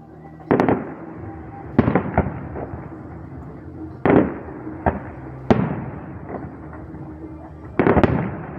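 Aerial fireworks bursting: a string of loud bangs, one every second or so, some in quick pairs, each trailing off in a rolling rumble.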